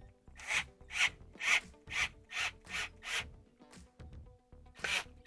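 A self-tapping screw being turned with a hand driver into the sheet-metal back of a Frigidaire dryer drum, cutting new threads. Each turn gives a short rasping scrape, about two a second, with a pause before the strokes start again near the end.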